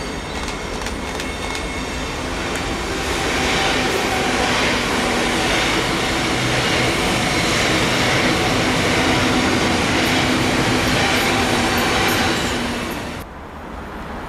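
Electric multiple unit train passing close by: wheel-on-rail noise with a steady motor hum, swelling as it nears and staying loud as the carriages go by, then cutting off suddenly a second before the end.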